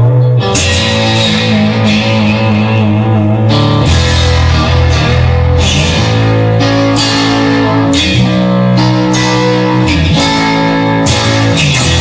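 Instrumental rock music: electric guitar playing sustained chords that change every second or two, over bass guitar and drums.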